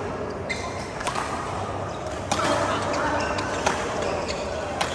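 Badminton rally: rackets striking the shuttlecock, about six sharp hits roughly a second apart.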